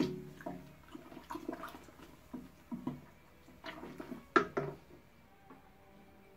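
Wooden spoon stirring wet malt into the water in a Speidel Braumeister's stainless steel malt pipe while mashing in, with irregular knocks of the spoon against the metal, some ringing briefly. The sharpest knock comes about four seconds in, and the stirring stops about five seconds in.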